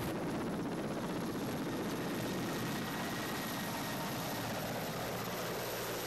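Helicopter running steadily, a dense, even engine and rotor noise.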